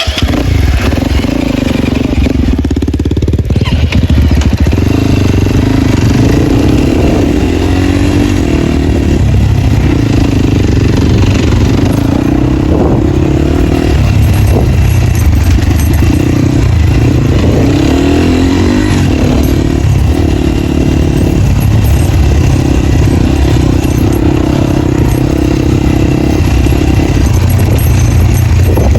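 250 cc dirt bike engine with no dB killer in the exhaust, ridden hard off-road: loud and steady, its pitch climbing and falling every second or two as the throttle opens and closes.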